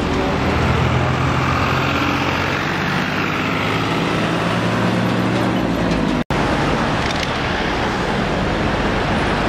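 Road traffic noise with a steady engine hum from a heavy vehicle running in the first six seconds; the sound drops out for an instant a little past six seconds, and passing traffic carries on after.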